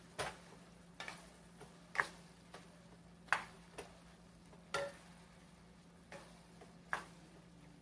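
Wooden spoon scraping and knocking against a stainless steel frying pan, about once a second, while ground pork, sliced hot dogs and onions are stirred, with a faint sizzle underneath.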